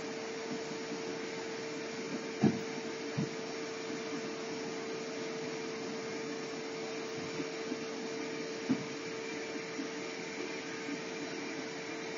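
Steady mechanical hum and hiss of room background noise, with one constant tone running through it. A few dull knocks come through it, the loudest about two and a half seconds in, a softer one just after, and another near nine seconds in.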